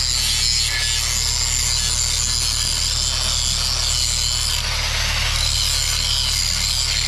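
A metalworking power tool running steadily: an even, loud hiss with a low hum beneath, starting abruptly.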